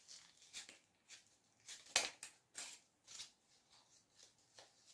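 Faint rustles and light clicks of EVA foam flower petals being pressed together and handled in the fingers, the sharpest click about two seconds in.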